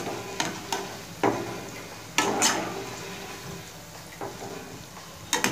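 Cabbage pakoras being lifted out of hot frying oil with a wire-mesh skimmer: several sharp metal clinks of the skimmer and spoon against the kadhai in the first couple of seconds, over the sizzle of the oil, which then settles quieter.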